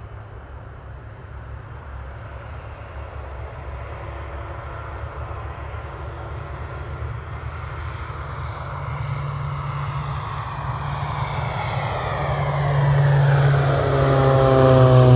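Air Tractor turboprop crop-duster taking off. The engine and propeller noise grows steadily louder as the plane speeds down the runway and lifts off. Near the end it is loudest, and its pitch falls as it passes close by.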